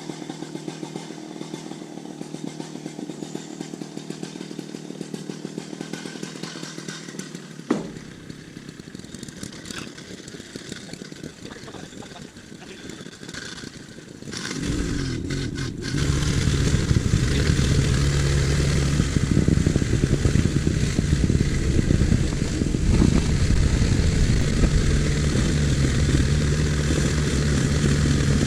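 Excavator diesel engine running at low revs, with a single sharp knock about eight seconds in. About halfway through the engine is throttled up and then runs loud and steady.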